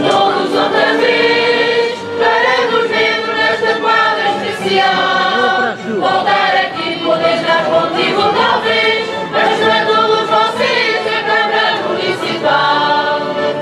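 A mixed choir of women, men and children singing a Reis carol (Portuguese Epiphany song) in long held phrases with short breaks between them.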